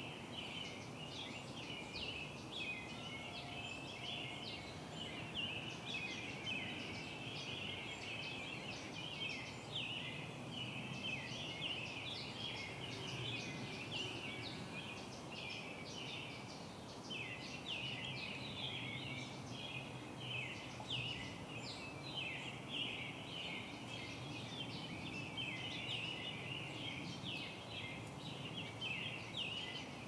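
A dense chorus of small birds chirping and chattering together, many short falling calls overlapping without a break, over a low steady background hiss.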